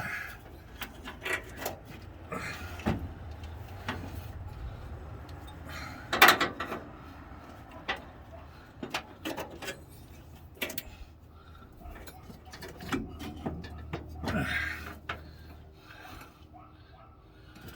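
Hand tools and loose engine parts knocking, clinking and scraping during hands-on engine work, with one louder knock about six seconds in. A steady low hum runs underneath and stops near the end.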